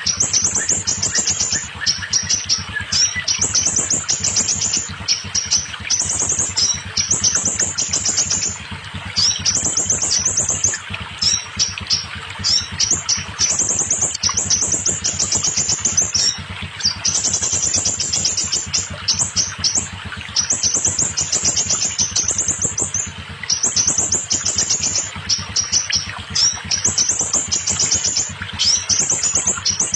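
Scarlet minivet (sepah raja) singing: repeated bursts of fast, high-pitched notes, each about a second long with short gaps between, over a steady background hiss.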